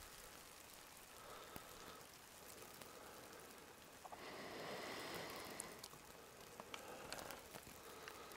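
Faint patter and hiss of heavy wet snow falling, with scattered small ticks. A louder hiss swells up for about a second and a half in the middle.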